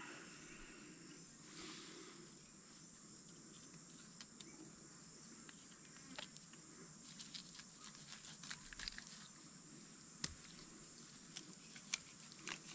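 Faint, steady high-pitched insect chorus, with scattered soft clicks and scrapes from a fillet knife cutting into a flathead, more frequent in the second half.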